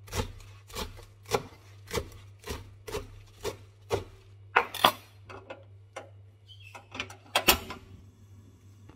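Large kitchen knife chopping a head of cabbage on a wooden cutting board, each stroke a knock of the blade through the leaves onto the wood, about two a second. The chops turn irregular halfway through and stop shortly before the end.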